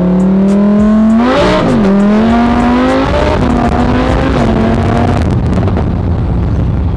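Lamborghini Huracán's V10 engine accelerating hard, heard from inside the cabin. Its pitch climbs and drops back at two quick upshifts, about a second and a half and three seconds in. Then it eases to a steadier drone that gives way to road and wind rush.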